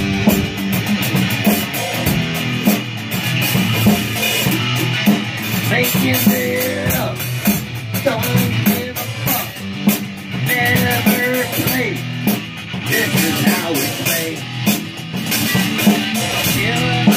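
Electric guitar and a drum kit with Zildjian cymbals playing a loose, improvised rock jam, the cymbals struck steadily.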